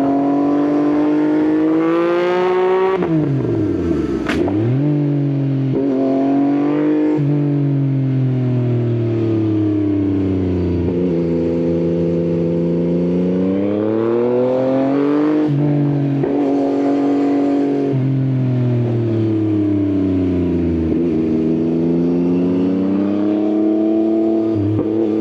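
Yamaha XSR900's inline three-cylinder engine through an Akrapovič exhaust, pulling up through the revs and dropping sharply at each gear change, then easing off and building again several times. A brief sweeping sound cuts across it about three to four seconds in.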